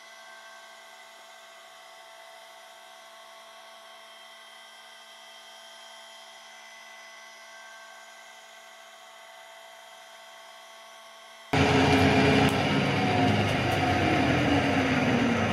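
Kearney & Trecker rotary head milling machine: a faint steady hum with several steady high tones, then about eleven seconds in a sudden jump to loud machining noise as the end mill works around the driveshaft yoke's outside diameter, turning it down to size.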